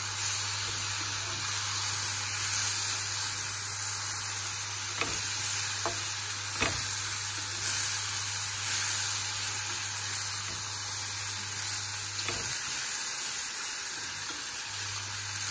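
Chickpeas and vegetables sizzling in a frying pan on a gas hob as they are stirred with a plastic spatula, with a few light knocks and scrapes of the spatula against the pan. A steady low hum runs underneath and stops for a couple of seconds near the end.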